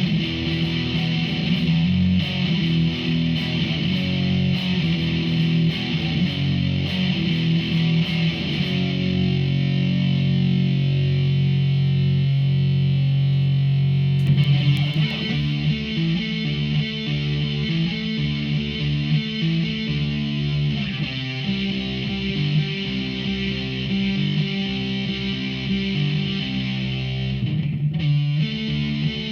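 Electric guitar played through a Behringer V-AMP PRO amp modeller on a distortion preset, riffing. About nine seconds in a chord is held and rings for about five seconds, then the riffing starts again, with a brief stop near the end.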